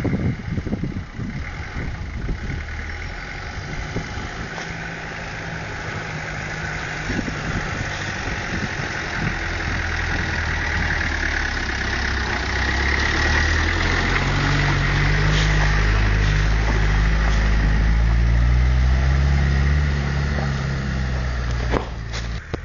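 Land Rover Defender 110's engine running as the 4x4 drives off-road along a rutted track, growing louder as it comes close about halfway through, then dropping away near the end.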